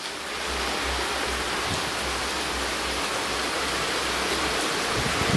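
Steady heavy rain falling, an even hiss with a low rumble underneath.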